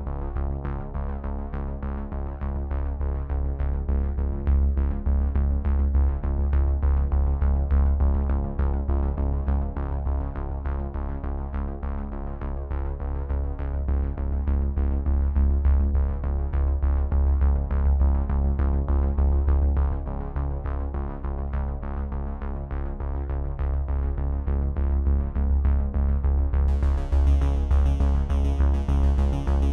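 Electronic background music: steady synthesizer chords over a strong bass line and a regular ticking beat, with a brighter high layer joining near the end.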